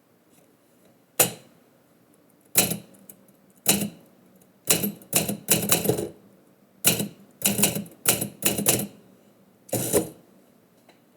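Typewriter keys striking the platen, about fifteen sharp clacks typed at an uneven pace, some alone and some in quick runs of three or four.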